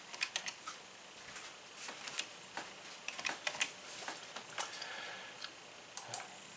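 Computer keyboard typing, with a mouse click near the end: light, irregular clicks.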